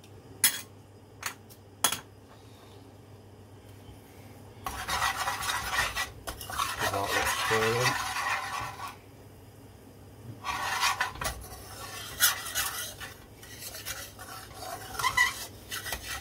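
Metal spoon stirring and scraping coconut milk powder, almond powder and sugar around a metal frying pan of hot ghee, which sizzles. A few sharp clinks in the first two seconds, then a long stretch of scraping from about five seconds in, a short lull, and more scraping and clinking near the end.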